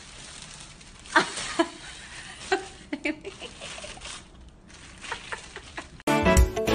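A thin plastic bag crinkling and rustling as a cat struggles with its head inside it, with a few short sharp crackles. Loud music starts abruptly near the end.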